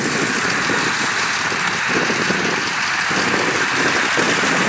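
Kubota DC-105X combine harvester running while it cuts rice, heard as a steady, even rushing noise with no distinct engine note.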